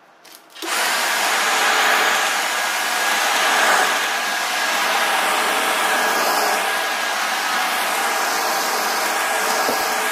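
Upright vacuum cleaner switched on about half a second in, then running steadily with a faint whine.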